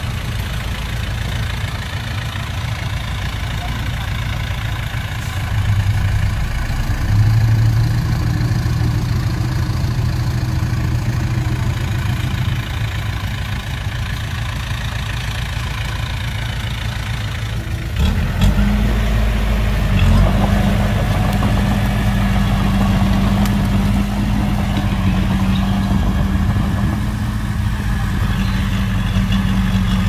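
Heavy diesel engines of earthmoving machinery running: a steady low engine drone that picks up briefly around seven seconds in, then abruptly gets louder with a higher, steady note about eighteen seconds in.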